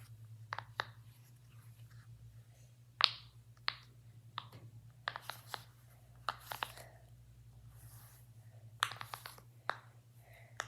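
Marble-and-mesh fidget handled and squeezed: a marble slid through a fabric mesh tube, giving scattered sharp clicks and short rustles, over a steady low hum.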